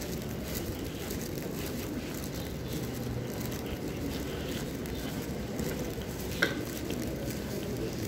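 Indistinct murmur of many voices and general hubbub in a large hall, with one sharp click about six and a half seconds in.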